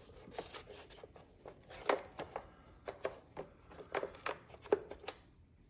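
Small clicks, taps and rubbing of parts being handled while a new ATV starter solenoid and its rubber boot are fitted, irregular, with the sharpest clicks about two seconds in and near the end.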